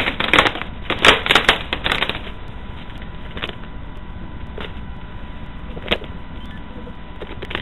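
Crystal Geyser plastic water bottle crinkling and crackling as it is handled: a quick run of sharp cracks in the first two seconds, then a few single clicks spaced a second or so apart.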